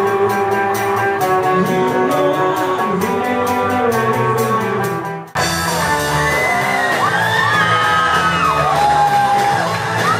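A rock band playing live: electric guitars, bass and drums, with a voice singing over them. About five seconds in the music breaks off abruptly and jumps to another passage.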